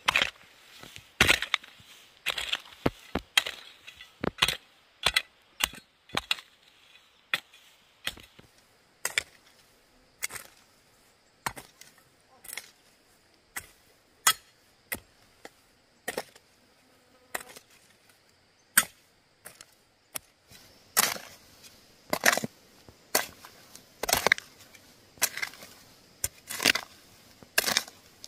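A hand hoe chopping into dry, stony soil over and over, a sharp strike roughly every second, with loose earth scattering: tilling ground for planting.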